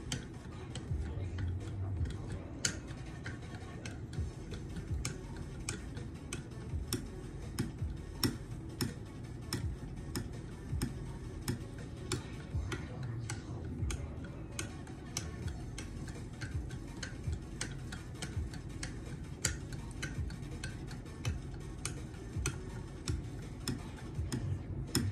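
ESEE 4 knife edge being worked at the 0.1-micron stage on a KME guided sharpener, giving irregular light clicks and taps as the stone carrier is stroked along the blade.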